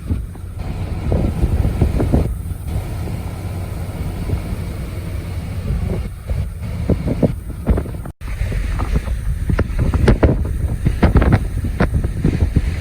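Gale-force blizzard wind, around 50 mph, buffeting the microphone in uneven gusts, a heavy low rumble with surges. The sound cuts out for an instant about eight seconds in.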